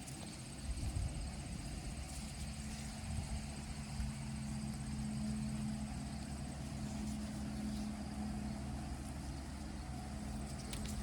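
An engine running steadily, heard as a low even hum that settles into a steady pitch about two seconds in.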